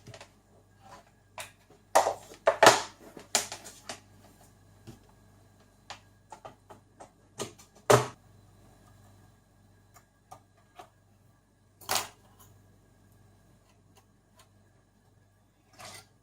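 Scattered clicks and knocks of hard plastic items being handled and set down on a table, with a few louder knocks spread through and a faint steady hum underneath.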